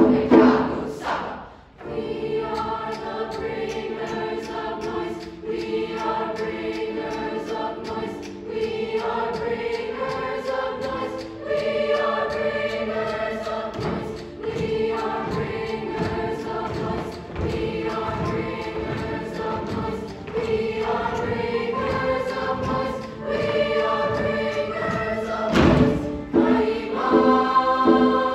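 Large mixed youth choir singing in parts with piano accompaniment, over a steady rhythmic pulse. It breaks off briefly about a second in, then resumes, with a loud accented hit near the end.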